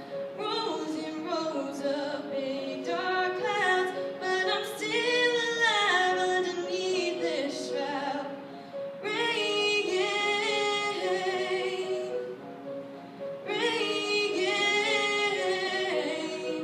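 A young girl singing a slow ballad in a clear voice, accompanied by held keyboard chords, with short pauses between sung phrases.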